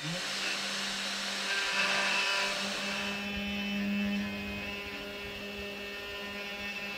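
Sainsmart Genmitsu 3020 Pro Max desktop CNC engraving an aluminium bar with a pointed engraving bit, taking light, slow passes. The spindle runs with a steady whine and hum, and the bit cutting the metal adds a hiss over it.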